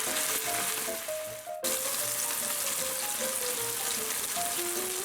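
Minced stingray patties sizzling as they fry in a pan, a steady crackling hiss broken off briefly about a second and a half in, with a light melody of background music over it.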